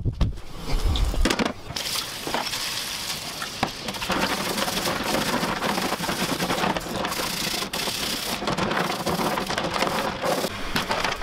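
Tap water running into a sink while a bike chain is scrubbed with a stiff bristle brush in the water, with scattered short clinks from the chain.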